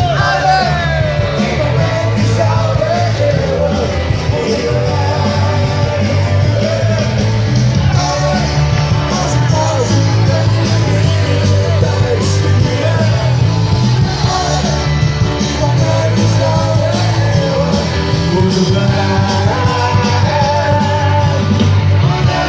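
Loud live band music with a singer, a heavy, steady bass line and drums under a wavering sung melody.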